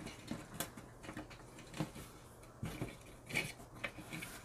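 Faint clicks and rubbing from hands handling a red plastic third-brake-light housing while test-fitting LED strips inside it, with a few sharper plastic clicks, the clearest just after the start and about three and a half seconds in.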